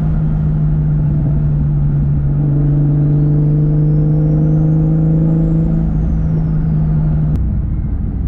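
Turbocharged 1.5JZ inline-six in a Lexus IS300 running at a steady engine speed while driving, with a faint high whine that rises and then falls midway. Near the end a click is heard and the engine note changes abruptly.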